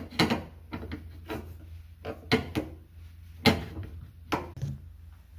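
Irregular clicks and knocks of a refrigerator's upper door-hinge bracket and its hardware being handled and set in place on the cabinet, about six sharp knocks spread unevenly.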